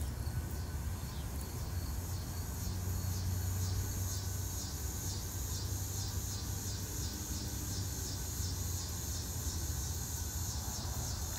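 Insects chirping in a steady high-pitched chorus, pulsing about four times a second, over a steady low hum.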